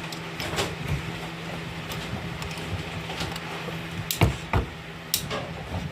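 Scattered clicks and knocks of a hand-held ratcheting cable-lug crimper and a heavy-duty lug being handled and lined up in the crimping die, with a few louder knocks about four to five seconds in, over a steady low hum.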